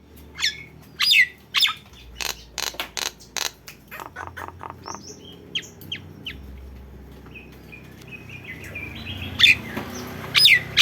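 Nias hill myna calling in the style of a tengkek buto kingfisher: loud, sharp downward-sweeping whistles mixed with quick runs of clicks, with louder whistled calls again near the end.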